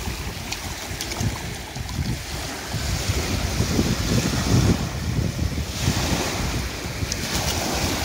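Small sea waves breaking at the shoreline and washing up over sand and shell grit, the hiss of the wash swelling about three seconds in and fading near six, with wind buffeting the microphone in low gusts.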